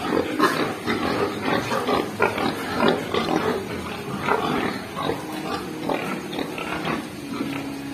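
Pigs eating greedily from a feed trough: fast, irregular chewing and rooting noises, several a second.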